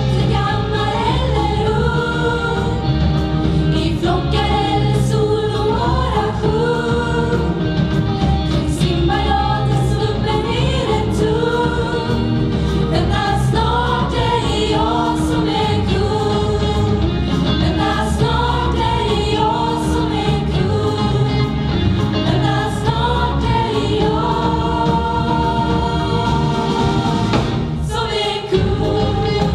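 Youth choir and two lead singers on microphones singing an upbeat song over a live band with drums and bass. The music briefly drops back near the end.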